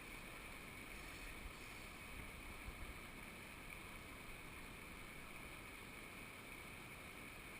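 Faint, steady background hiss with no distinct events.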